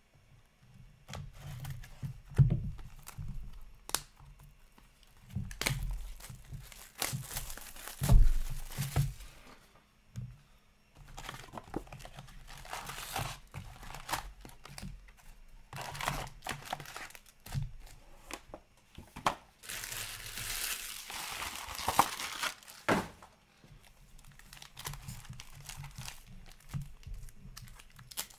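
A sealed box of hockey cards being cut into and its cardboard tear strip ripped open, then the packs taken out and a wrapper crinkling and tearing as it is ripped open, with irregular taps and knocks of cardboard on the table.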